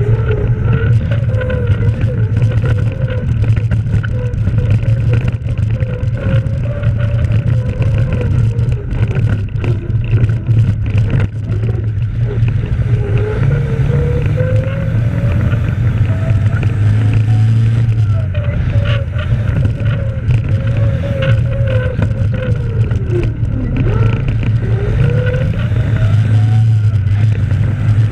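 Heavy vehicle's engine running under load as it drives a rough gravel track, over a steady low drone, its pitch rising and falling as the revs change.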